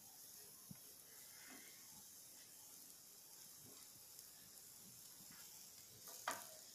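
Faint, steady high hiss of oiled eggplant slices beginning to sizzle in a nonstick frying pan, with a light tap near the end.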